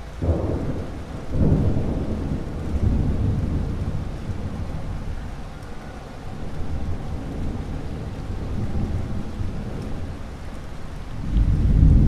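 Thunderstorm: rolling thunder over steady rain. A rumble breaks in just after the start and swells about a second later, rolls on and eases off, then a loud peal builds again near the end.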